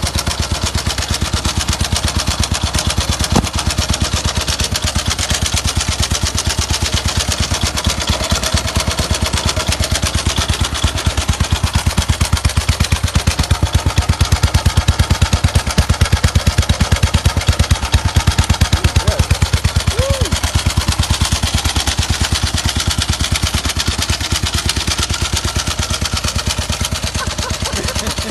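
1925 BSA motorcycle engine running with a steady, evenly spaced exhaust beat, each firing stroke distinct. The beat grows a little louder around the middle and eases off again near the end.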